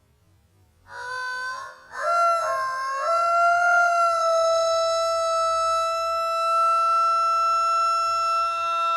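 Rooster crowing slowed down four times. A short pitched note comes about a second in, then one long, steady, even-pitched held note that sounds almost like a reed instrument.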